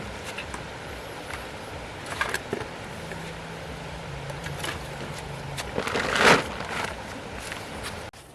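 A small engine running steadily, with a few sharp knocks about two seconds in and a loud noisy rush about six seconds in; the sound cuts off abruptly just before the end.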